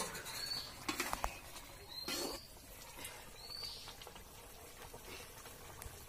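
A long metal spatula knocking and scraping in an iron wok of cooking curry, a few separate clatters. Behind it, short rising bird chirps repeat about every second or two.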